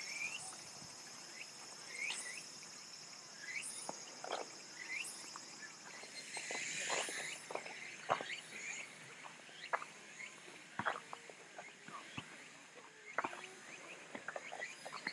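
Crickets and other insects trilling steadily in the grass, a high, even, pulsing chirr. Short rising chirps are scattered mostly through the first half, over light clicks and taps.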